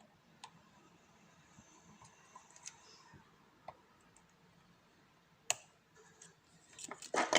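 Small metallic clicks and taps from a hook pick working the pins of a pin tumbler lock during single-pin picking, with the lock held under tension from a pry bar. The clicks come one at a time, a sharper click about five and a half seconds in, then a quick flurry of clicks near the end.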